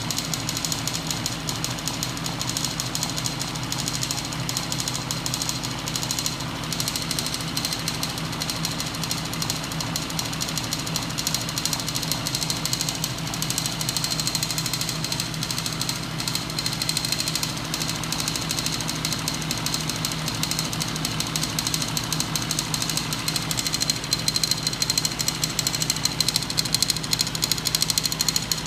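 Homemade crankshaft-and-linkage machine driven by an electric motor, running steadily: a rapid continuous mechanical rattle of the spinning crank, connecting rods and flywheel, over a steady high motor whine. It grows a little louder in the last few seconds.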